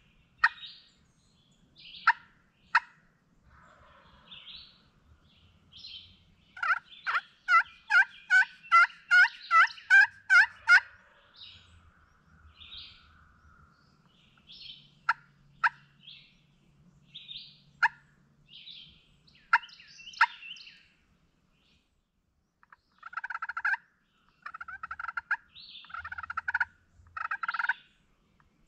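Turkey yelping: a run of about ten loud, evenly spaced yelps, each falling in pitch, with short sharp call notes scattered around it and small birds chirping.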